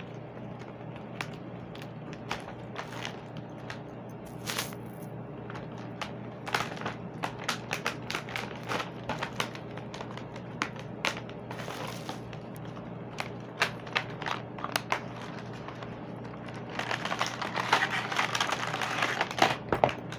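Clear plastic packaging crinkling and rustling with scattered clicks and taps as a shrink-wrapped waterproof camera box is handled and opened. The crinkling grows denser and louder over the last few seconds.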